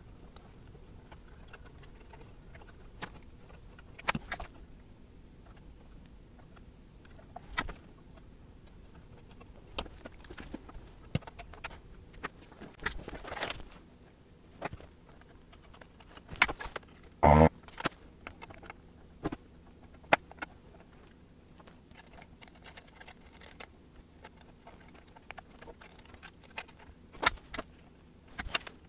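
Scattered small clicks and light metallic clatter of capacitor leads, pliers and a soldering iron being handled against a steel amplifier chassis during a recap, with one louder clatter a little past halfway.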